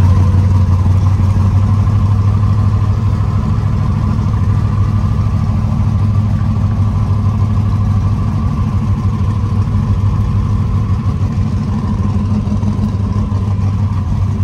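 The Camaro's naturally aspirated big-block V8 running steadily at low revs, heard from inside the cabin: a loud, even low engine note with no revving.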